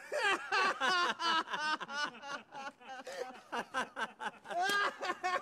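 Young men bursting out laughing together, loud, rapid pulses of laughter with voices overlapping.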